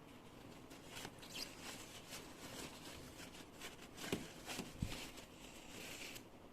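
Household items being handled: rustling and light clicks and knocks, with two soft thumps about four and five seconds in.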